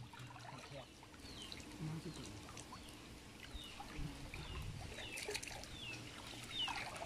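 Birds chirping: many short, high notes that each drop slightly in pitch, repeated on and off throughout, over a low background hum.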